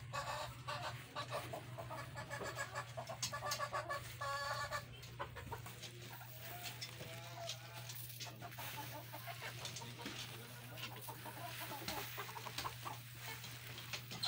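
Chickens clucking, with the calls busiest in the first five seconds, over a steady low hum.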